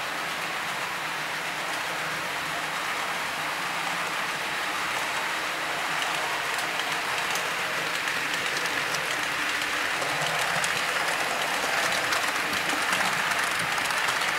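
Model freight train running past on the layout's track: a steady rushing rattle of small wheels on the rails, growing slowly louder as the wagons come closer.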